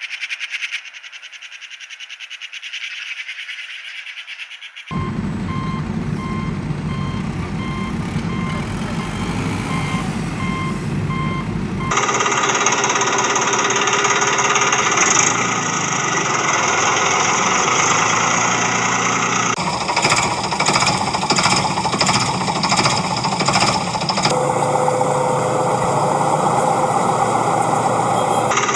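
Vehicle sounds in abrupt cut sections. A steadily pulsing beep like a reversing alarm sounds over motor noise from about five seconds in, and from about twelve seconds in a louder, steady machine running takes over.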